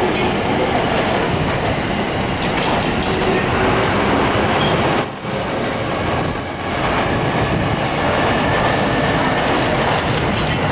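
A train running past at close range: a steady, loud rumble of wheels on the rails, with two short high-pitched sounds about five and six and a half seconds in.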